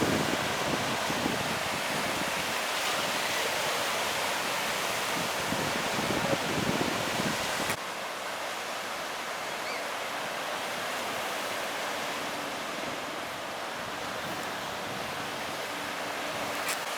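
Surf washing on a beach as a steady rushing noise, with wind buffeting the microphone in the first half. About halfway through the low rumble cuts out abruptly and the wash goes on a little quieter.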